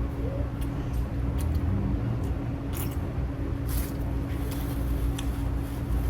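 Steady low hum and rumble with scattered short clicks and crackles from handling and eating seafood-boil crab legs.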